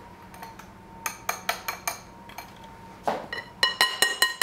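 A wire whisk clicks against a small glass bowl a few times. From about three seconds in, a metal pastry blender is tapped against the rim of a glass mixing bowl in a quick run of clinks, about four or five a second, each leaving a brief glassy ring.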